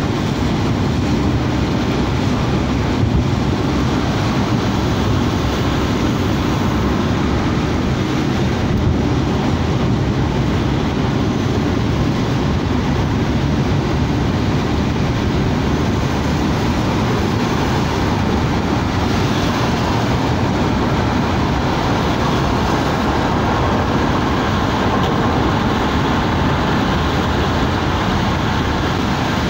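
Steady noise inside a moving car's cabin: tyres on a rain-soaked road, with rain on the windscreen.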